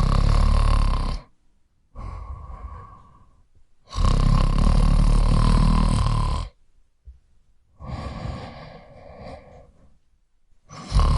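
A sleeper snoring: loud, rasping snores of one to two and a half seconds, with a quieter breath between each. The first comes at the start, the longest about four seconds in, and another begins near the end.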